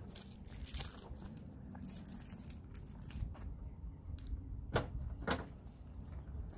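Keys jingling in hand, with small handling clicks, then two sharp clicks about five seconds in, half a second apart.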